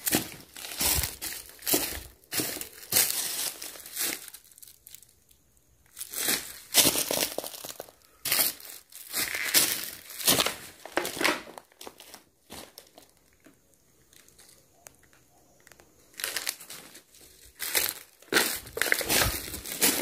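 Footsteps crunching and crackling through dry leaves and scattered debris, irregular, stopping twice for a few seconds.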